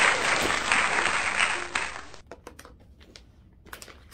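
Applause sound effect, dense clapping, that stops abruptly about two seconds in. A few faint clicks and knocks follow.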